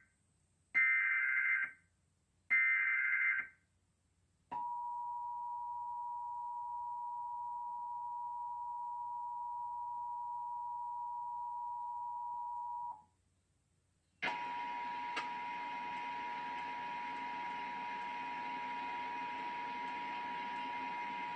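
Emergency Alert System Required Monthly Test: the last two of the three short SAME data-header bursts, then the two-tone EAS attention signal (853 and 960 Hz) held for about eight and a half seconds. After a second of silence the attention tone starts again, this time with a steady hiss of noise under it.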